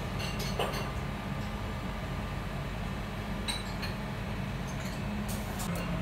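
A few light metallic clinks over a steady low hum of restaurant room noise, the last clinks coming as stainless steel bowls are handled near the end.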